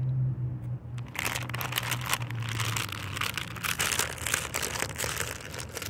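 Crinkly snack bag rustling and crackling as a hand rummages inside it, starting about a second in and running in quick irregular crackles.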